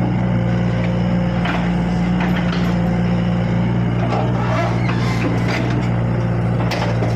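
Kubota backhoe's diesel engine running steadily, with several short knocks and clanks along the way.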